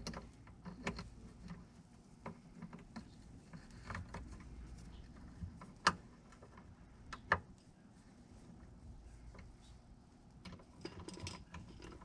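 Scattered light clicks and taps of hand tools and metal hardware being worked, with two sharper clicks about six and seven and a half seconds in.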